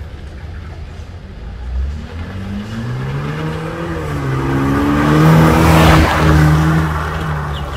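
BMW 320i with an aftermarket valved exhaust accelerating toward and past, its deep engine note rising in pitch and dipping once about four seconds in. It is loudest as the car goes by about six seconds in, then fades.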